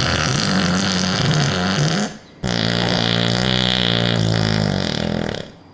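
Two long, loud burps: the first ends about two seconds in, and the second starts soon after and lasts about three seconds.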